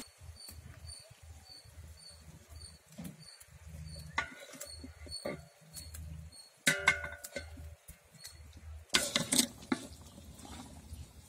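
Perforated metal ladle scraping and knocking against a large metal cooking pot as fish curry is stirred, in a few separate clatters, the loudest near the middle and about two-thirds of the way in. A faint high chirp repeats a couple of times a second behind it for the first half or so.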